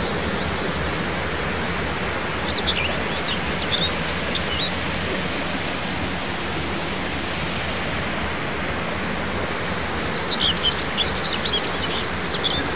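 A steady rushing noise with birds chirping over it in two short bursts, about two and a half seconds in and again from about ten seconds in.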